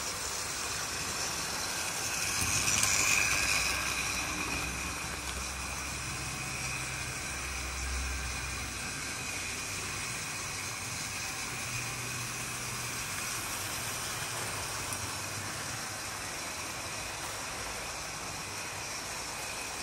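00 gauge model trains running on track: a steady mechanical running noise from the locomotives' small electric motors and the wheels on the rails, louder for a moment about three seconds in.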